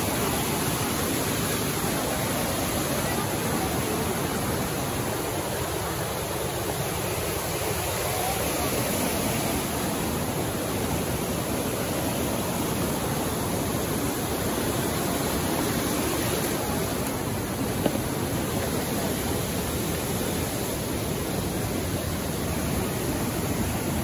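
Creek water rushing steadily over granite cascades and small falls, with one short click about three quarters of the way through.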